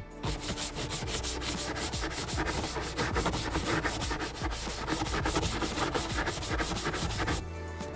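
A sponge scrubbing a soapy plastic propane tank cover in quick, even back-and-forth strokes, several a second, which stop near the end.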